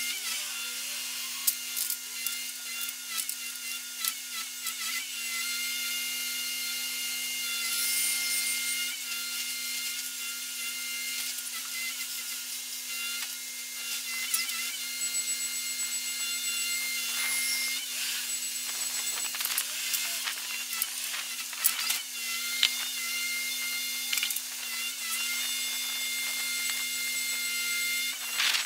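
Truck-mounted hydraulic loader crane at work unloading with a grab: a steady hum from the hydraulic drive with irregular knocks and clatter over it.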